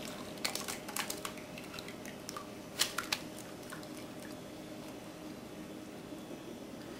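Faint scattered wet clicks and ticks as the foamy soybean milk mixture settles and drains through cheesecloth, just after being poured from a glass measuring jug. Two sharper clicks come about three seconds in.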